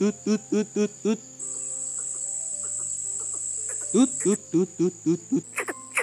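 Two runs of deep hoots in the greater coucal's call pattern, about four a second, made as a lure call: one run ends about a second in, the next starts about four seconds in. Between them an insect's steady high buzz.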